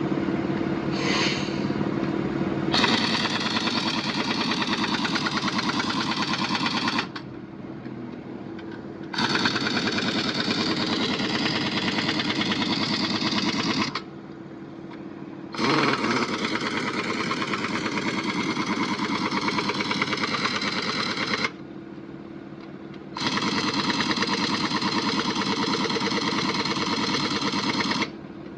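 Pneumatic impact wrench running in four long bursts of about five seconds each, with short pauses between, as a truck wheel's nuts are run on. A steady low hum runs underneath.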